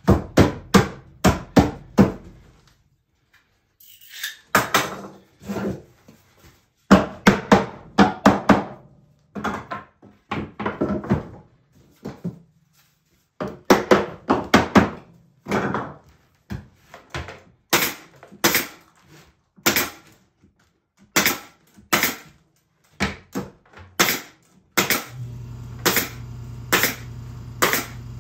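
Hand slapping the glued parts of a finger-jointed wooden bee box to seat the joints: sharp wooden knocks in quick runs of several. A low steady hum comes in near the end.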